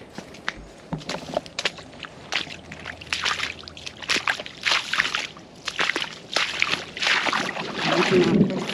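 Footsteps wading and sloshing through shallow standing water, one splashy step about every half second to second, getting louder toward the end.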